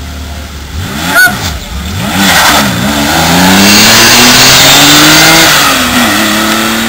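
Early air-cooled, rear-engined Porsche 911-bodied coupé idling, then blipped a couple of times and launched from a standing start. The engine rises in pitch under hard acceleration, dips briefly at a gear change about five and a half seconds in, then pulls again as it drives off, with tyre noise. A short, sharp crack about a second in.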